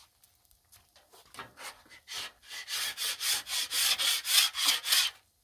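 A griddle scraper scraping the steel cooking surface of a Blackstone flat-top griddle in quick repeated strokes, about three a second. It is faint at first, grows louder, and stops shortly before the end.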